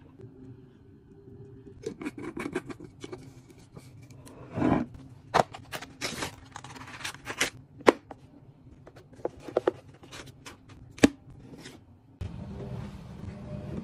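Cardboard box being handled and opened by hand: a run of sharp clicks and taps with scraping and a brief stretch of rustling, starting about two seconds in.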